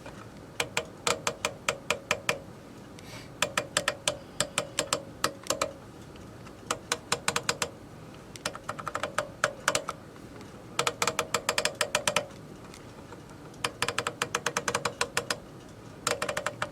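Rapid runs of clicks from a radio's frequency selector being stepped through channel after channel, about eight clicks a second, in about seven bursts of one to two seconds with short pauses between.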